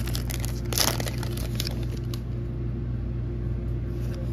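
Foil wrapper of a Pokémon card booster pack crinkling and crackling as it is torn open, loudest about a second in and dying away after about two seconds. A steady low hum runs underneath.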